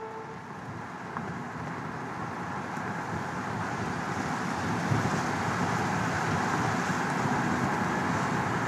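Electric car driving on a road: a steady hiss of tyres and wind with no engine note, growing slightly louder.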